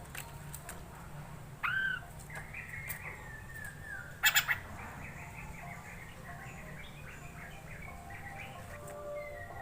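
Poksay mandarin (Chinese hwamei) singing a varied phrase of whistled notes and quick repeated chirps, with a short harsh burst about four seconds in; a faint steady low hum lies underneath.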